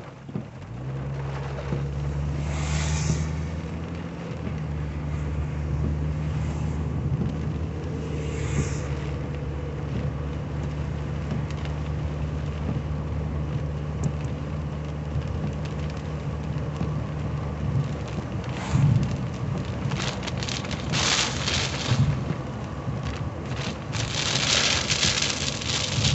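A 1985 Cadillac Cimarron's engine, heard from inside the cabin, pulls away about a second in and then runs with a steady drone, over the hiss of tyres on a wet road. There are brief swishes about three and eight seconds in, and rain strikes the windshield more densely near the end.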